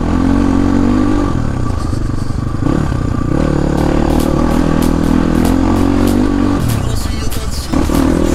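Off-road motorcycle engine running under way, easing off briefly about a second in and falling in pitch near the end before picking up again. From about halfway on, sharp clattering ticks come a few times a second as the bike rides over the rough dirt track.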